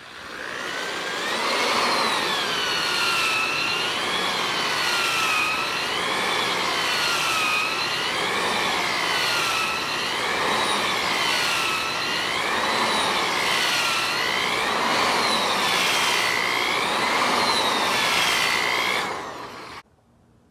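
Cordless drill spinning a Flex-Hone ball hone inside a Honda D15B cylinder bore, honing the walls to a crosshatch. The drill's motor whine rises and falls in pitch about every two seconds as the hone is stroked up and down, over the scrubbing hiss of the abrasive balls. It starts about half a second in and cuts off just before the end.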